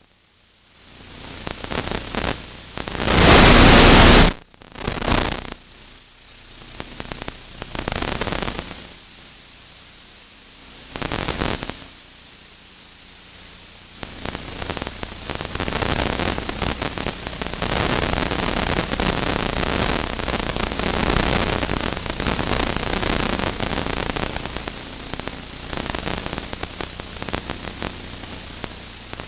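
Static hiss on the recording, with a few louder surges of noise in the first seconds, then steady from about fourteen seconds in.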